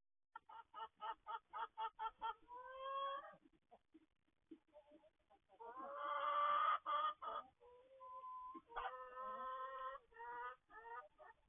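Hens clucking and cackling, thin-sounding through a small bird-cam microphone. A quick run of short clucks, about four a second, gives way to longer drawn-out calls, the loudest about six seconds in.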